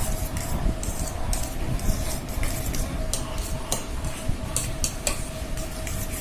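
Spoon clinking and scraping against a bowl while stirring a thick egg, vegetable and noodle omelette batter, with irregular sharp clicks and a faint steady hum underneath.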